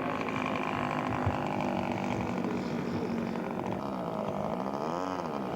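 Model airplane engine of a radio-controlled scale aircraft running steadily in flight, its pitch rising and then falling once near the end.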